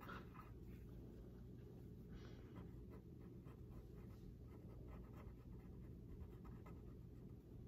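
Faint scratching of a pen writing on paper, in small irregular strokes over a low room hum.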